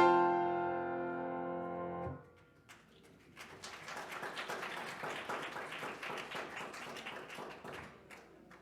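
The last chord of a song played on keyboard rings on and stops about two seconds in, then a congregation applauds for about five seconds.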